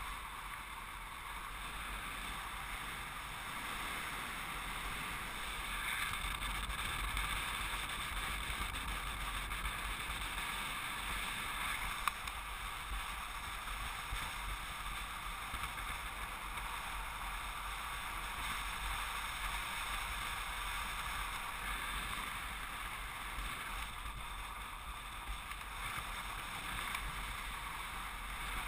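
Steady rush of air past the camera during paraglider flight, with one sharp click about twelve seconds in.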